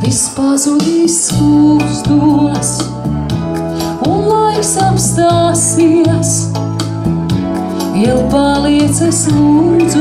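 A woman singing a melody into a microphone, accompanied by an electronic keyboard playing sustained chords over a steady beat.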